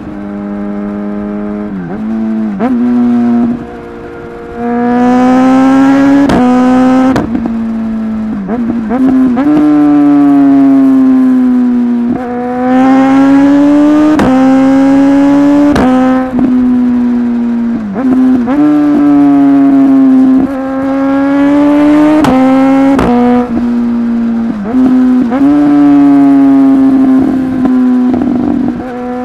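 Suzuki GSX-S1000 inline-four engine accelerating hard and climbing through the gears several times. Its pitch rises, then drops sharply at each quickshifted upshift, with a sharp pop from the exhaust at the shift.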